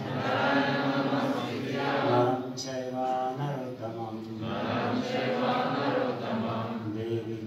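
A congregation chanting a Sanskrit prayer together, many voices in unison, with stretches where a single clearer voice stands out.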